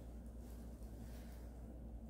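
Wide flat brush sweeping water-thinned gesso across a stretched canvas: faint soft swishing strokes over a steady low hum.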